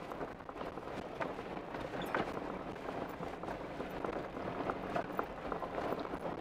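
Off-road vehicle rolling along a gravel dirt road: a steady crunch of tyres on gravel with scattered small knocks and rattles.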